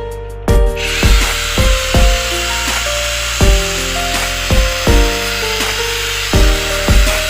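Background music with a steady beat, and from about half a second in a battery-powered grinder running steadily under it, giving a continuous high hiss of grinding.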